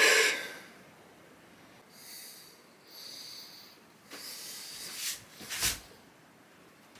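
A person breathing in and out through the nose in a few short, hissy sniffs and puffs, the last one near the end the loudest.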